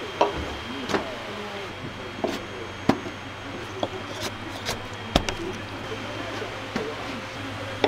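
About nine sharp knocks of a tool striking wood, irregularly spaced, as in hand work on a koto's wooden body, over a steady low hum.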